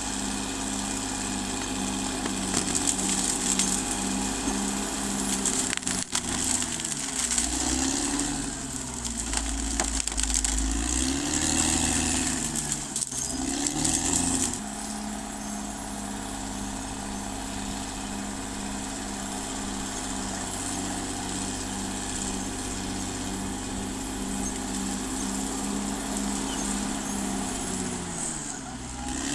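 CAT D6R XL bulldozer's diesel engine working under load. Its pitch dips and recovers several times in the first half, holds steady, then dips once more near the end, with a faint high whine over it.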